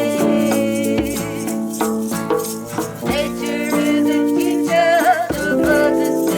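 Music: a melody with wavering held notes over a steady beat of percussion strokes.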